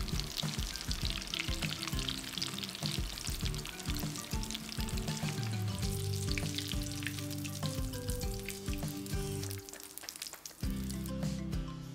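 Potato patties frying in hot oil in a pan, the oil sizzling with a dense fine crackle that thins out near the end.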